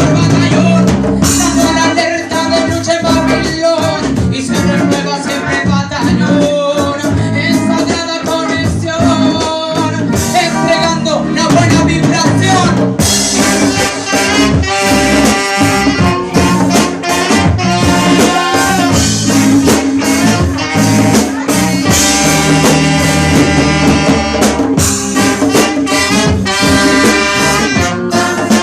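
Upbeat ska-style music with a steady beat and a horn section of trumpets and trombones, the horns coming forward about halfway through, played loud over a sound system.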